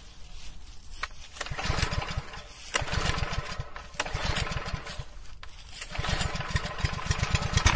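Bluelight garden tiller's single-cylinder four-stroke petrol engine being pull-started on choke: it fires in short runs that break off, then catches and runs steadily from about six seconds in.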